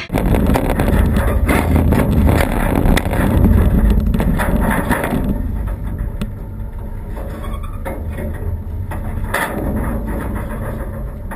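Wind buffeting the camera microphone on the deck of a sailing catamaran: a loud, low rumble with scattered knocks, heaviest for the first five seconds or so, then easing.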